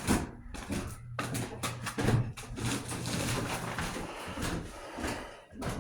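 Several ceiling fans running together on low speed: a steady motor hum under a hiss of moving air, with irregular knocks and rustles of handling.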